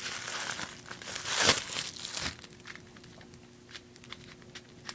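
Crinkling and rustling of wrapping being pulled off a Pepsi can, loudest about a second and a half in, then a few light clicks and taps as the can is handled.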